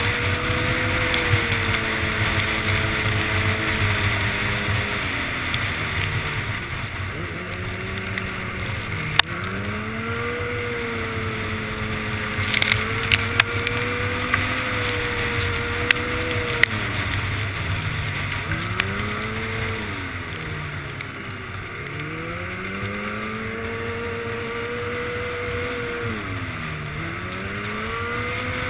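Snowmobile engine running at speed, its pitch dipping and climbing again several times, over a steady rush of wind. A few sharp knocks come through in the middle.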